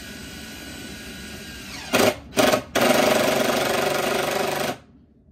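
Cordless drill driving screws into pine boards: two short trigger pulls, then one longer run of about two seconds that cuts off sharply.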